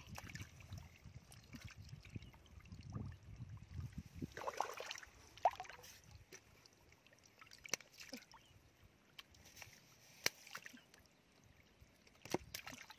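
Shallow muddy water sloshing and splashing as fish are caught by hand in a drained rice paddy, with a few sharp knocks.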